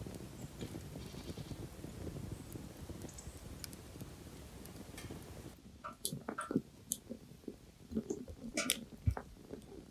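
Wood fire burning in a small folding hobo stove, crackling and popping. A low rumble of burning runs under scattered crackles at first; about halfway through the background drops away and sharper, irregular pops and snaps stand out.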